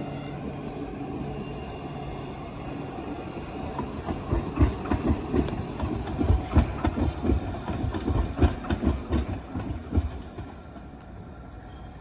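A rail vehicle passing over the line, its wheels clattering over rail joints in quick irregular strokes from about four seconds in until about ten seconds, over a steady rumbling hum.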